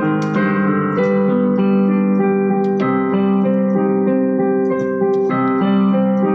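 Piano music playing slow, sustained chords, with new notes struck every half second to a second.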